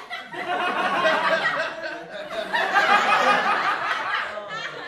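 People talking and laughing together, with chuckles mixed into the chatter.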